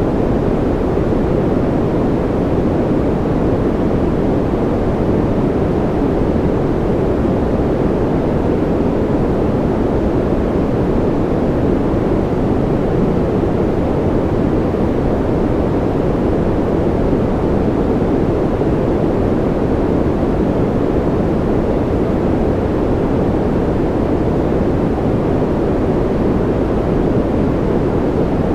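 Steady, unchanging noise of the kind played for sleep: a deep, even rush with most of its weight low down and little hiss on top, with no drops or events.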